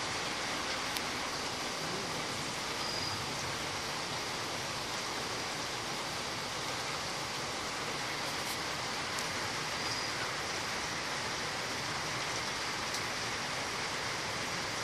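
Steady rain falling, an even hiss with a few faint ticks.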